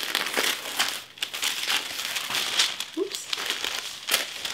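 White tissue paper rustling and crinkling as it is unfolded and pulled back by hand, in quick irregular crackles with a sharper crackle near the end.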